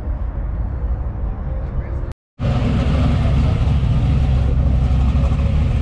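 Car engine and exhaust running steadily, with faint voices underneath. The sound cuts out briefly about two seconds in and comes back louder, with a heavier low rumble.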